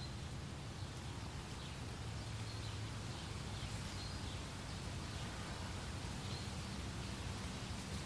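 Wind blowing through meadow grass, a steady rustling haze with a low rumble, with a few faint short bird chirps now and then.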